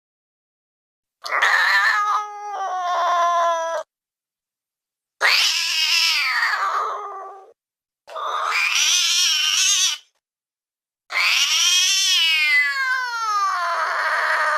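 Sound-effect calls for the Hybrid Island Dwarf Cat: four drawn-out, cat-like yowls separated by silent gaps. Most slide down in pitch, one wavers, and the last is the longest.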